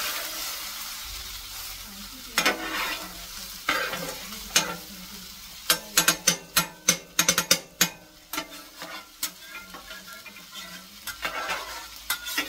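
Onions frying and sizzling on the steel plate of a Vevor electric flat-top griddle as it is seasoned, while a metal utensil scrapes and stirs them across the plate. A quick run of sharp taps on the steel comes between about six and eight seconds in.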